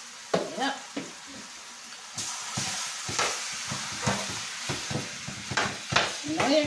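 Chicken pieces sizzling as they are scraped from a glass baking dish into a pot of hot oil and burnt curry. A spoon knocks and scrapes against the dish and pot many times, and the sizzle swells about two seconds in.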